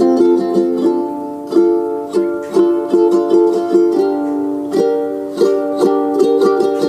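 Instrumental background music: a bright plucked-string melody over held chords, with notes struck in a steady rhythm.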